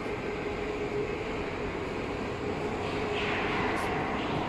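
Feed grinder and vertical mixer machine running: a steady mechanical drone with a constant hum tone. A short rush of higher hiss comes a little after three seconds in.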